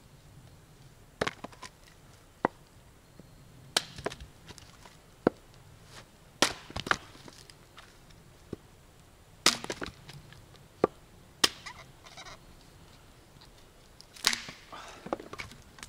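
Viking axe with a fiberglass handle chopping and splitting wood: about a dozen sharp blows at irregular intervals, some in quick pairs.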